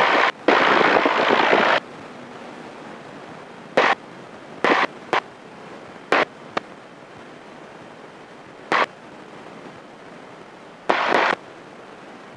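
Cockpit headset intercom feed of a small plane: open-microphone cabin noise for the first couple of seconds, then a steady low hiss broken by about seven brief bursts of noise that switch on and off sharply, as the voice-activated microphone opens and closes.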